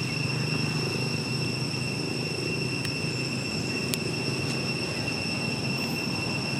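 Steady outdoor background: a continuous high-pitched whine over a low rumble, with a couple of faint clicks midway.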